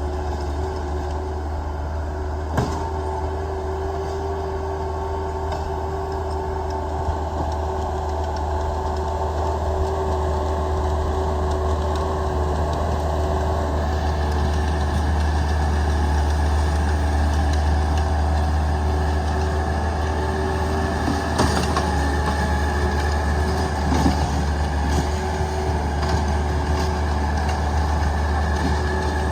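Heavy equipment's diesel engine running steadily at a low drone, with a few brief knocks.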